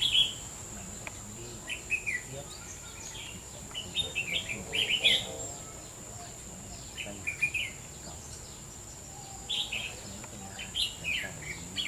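Red-whiskered bulbuls calling: bursts of short chirpy notes every couple of seconds, with gaps between.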